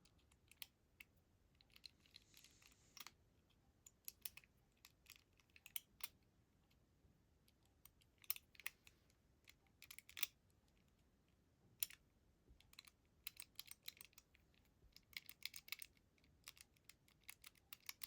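Number wheels of a Master Lock 875 combination padlock clicking as they are turned and jiggled, irregular light clicks with a few quick runs of ticks. The shackle is held under tension while each wheel is felt for movement to decode the combination.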